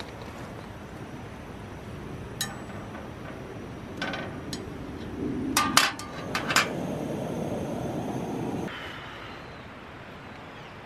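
A metal utensil clinking and tapping on a round griddle pan on a camping stove as small pancakes are handled, a few sharp clicks with a cluster of them about halfway through, over a steady hiss.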